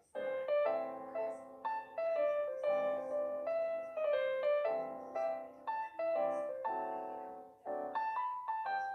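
Background piano music: a melody of struck notes over chords, each note fading after it is played.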